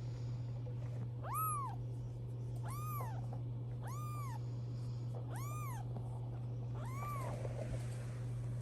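A young British shorthair kitten meowing five times, each short call rising then falling in pitch.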